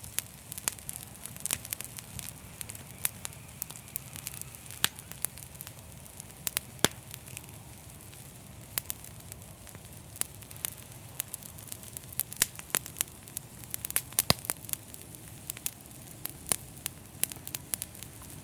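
Campfire burning: a steady low hiss and rumble of flames with irregular crackles and pops from the burning wood, several of them sharp and loud.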